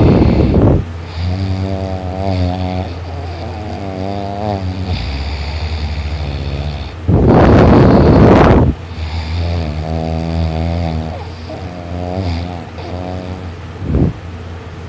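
Heavy snoring in sleep: a loud breathy snore at the start and another about seven seconds in, with quieter buzzing, wavering snores between them. A steady low hum runs underneath.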